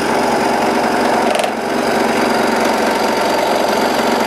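Scroll saw running steadily, its blade cutting out the waste between two drilled holes to open a hand hole in a pallet-wood board.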